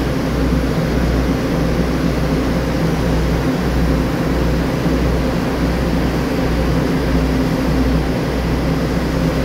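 Stationary diesel railcar idling at the platform: a steady low engine drone with a few hum tones above it.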